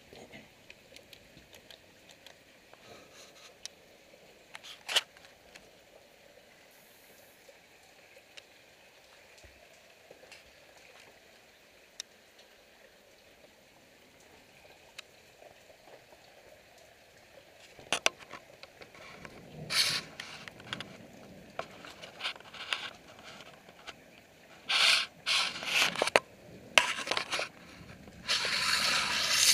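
Faint background hiss with a single sharp click about five seconds in, then, in the last third, repeated bursts of rustling and scraping handling noise.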